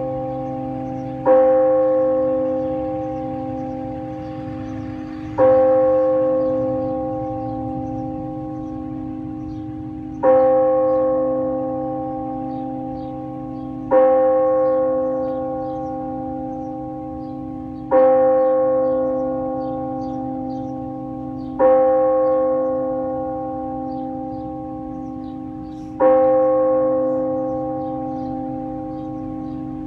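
A single bell tolled slowly as a memorial toll: seven strokes, about one every four seconds. Each stroke rings out and slowly fades, still sounding when the next one lands.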